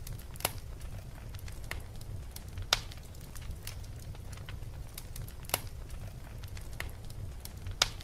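Crackling fire: irregular sharp pops and snaps, the loudest nearly three seconds in, over a low steady rumble.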